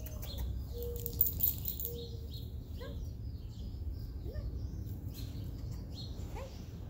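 Wild birds chirping and calling in the background, over a steady low rumble of outdoor background noise.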